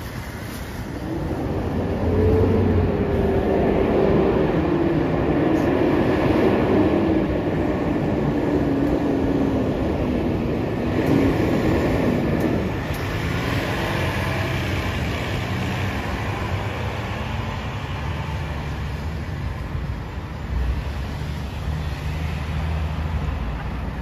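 Fire trucks' diesel engines running as they pull out, one passing close with an engine note that wavers and slowly falls, then fading as it drives off.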